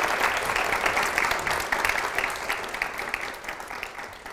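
Audience applauding, with many overlapping claps dying away gradually toward the end.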